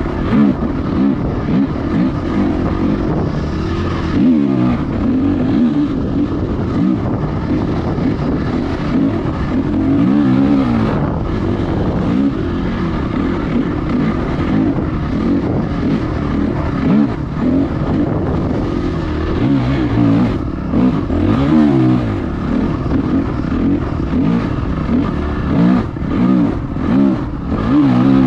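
Honda CRF250X's single-cylinder four-stroke engine, fitted with an enduro silencer, running under load on a sandy trail, revving up and dropping back again and again as the throttle is worked.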